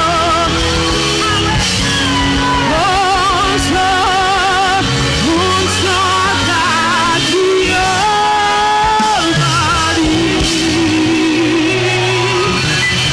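Worship music with singing: voices holding long notes with vibrato and sliding between pitches over steady band accompaniment.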